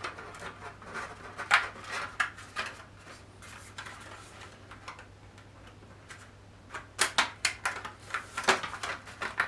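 Hard plastic model-kit base parts clicking and tapping as they are handled and pressed together, pieces clipping into place. Scattered clicks at first, a quieter stretch in the middle, then a quick run of sharp clicks near the end.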